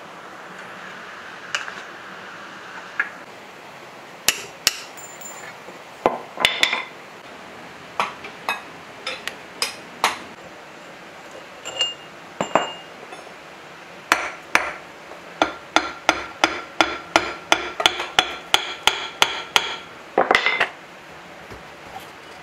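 Hammer blows on the rusted cast-iron cylinder head of a diesel engine being dismantled. A few scattered metallic knocks come first, then a quick run of ringing taps, about three to four a second, for several seconds.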